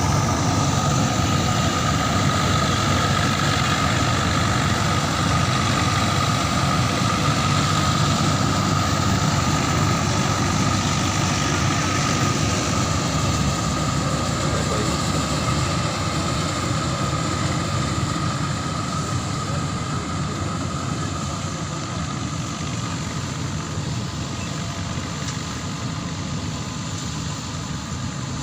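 Combine harvester running steadily while cutting rice, a continuous engine and machinery drone with a steady whine. It gradually grows quieter through the second half.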